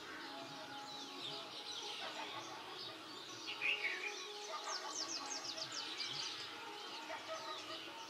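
Songbirds chirping and calling, with a quick run of falling high notes about five seconds in.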